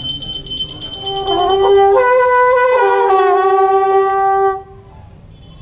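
A pair of long brass ceremonial horns blown together in one loud, blaring fanfare note that steps up in pitch and back down, then cuts off sharply about four and a half seconds in.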